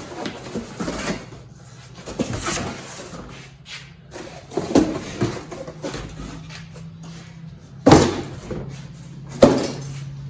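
Parts of a garage door opener kit, metal brackets and hardware, being handled and set down, with rustling and a series of clunks and clatters; the two loudest knocks come near the end.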